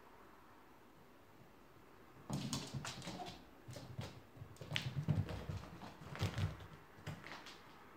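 A cat scrambling and pouncing after a laser dot: a run of irregular thumps from its paws and scrapes of its claws on the floor, starting about two seconds in and lasting several seconds.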